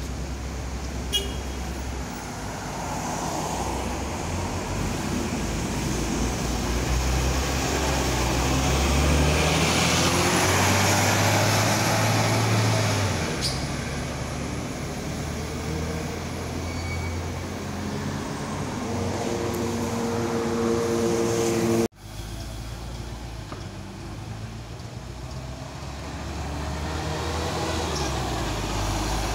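Double-decker bus engines in street traffic: a bus draws near and its engine swells to a loud peak with a faint high whine over it, then runs on with the engine note stepping up as it pulls away. After a sudden cut the traffic is quieter until another bus comes by near the end.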